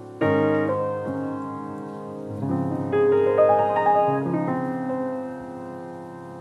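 Grand piano playing: a loud chord struck just after the start and left to ring, then a run of higher notes and chords through the middle that dies away toward the end.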